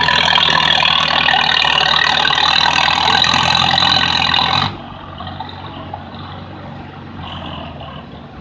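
Minneapolis-Moline U tractor's four-cylinder engine running hard, pulling a weight sled, then cut back suddenly to a much quieter idle a little past halfway as the pull is stopped.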